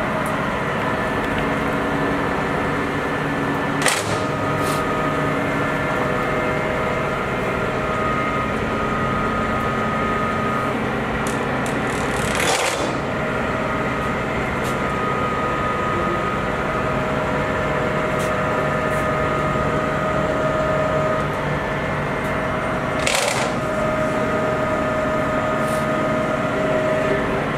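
Lodge & Shipley 26" x 144" engine lathe running, a steady machine hum with gear whine whose tones drop out and come back. Three sharp clicks, spread through the stretch, come as the apron levers are thrown.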